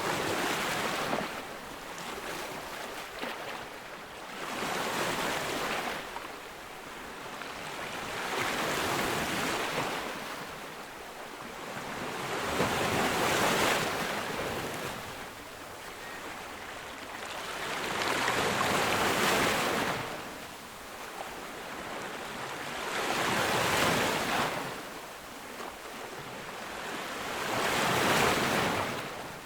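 Ocean waves breaking on a beach. The surf rushes in and swells about once every four to five seconds, then fades between breakers.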